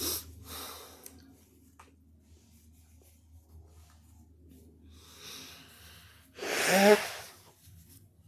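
A person's noisy breathing: a few short breathy sounds, then a loud, wheezy breath about six and a half seconds in that ends in a brief voiced sound.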